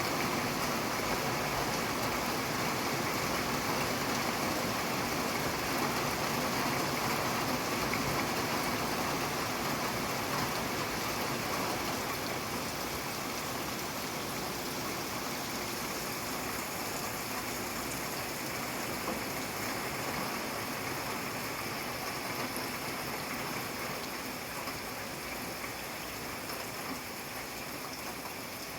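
Steady rain falling, a dense even hiss of many drops, easing slightly in loudness through the latter half.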